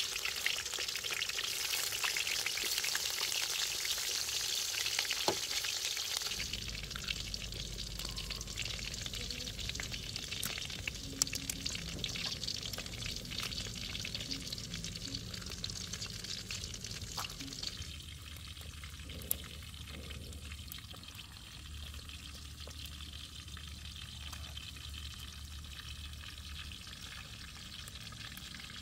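Eggs frying in hot oil in a wok, inside bell pepper rings: a steady sizzle with small crackles, loudest for the first six seconds or so, then quieter and dying down about two-thirds of the way through.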